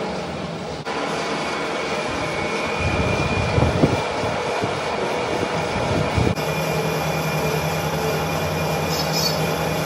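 Manual metal lathe running and cutting metal: a steady machine drone with a scraping noise from the tool. The sound changes abruptly about a second in and again at about six seconds.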